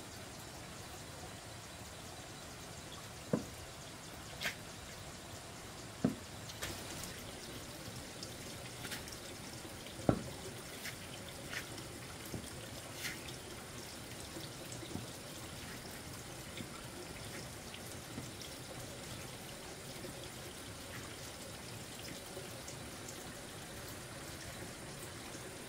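Water trickling and dripping on a wet concrete floor: a faint steady wash of sound with scattered light ticks, and a few sharper knocks about 3, 6 and 10 seconds in.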